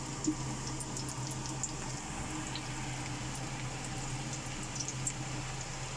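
Chopped shallots, garlic, ginger and chilies gently sizzling in oil in a wok, with faint scattered small pops and crackles over a steady low hum.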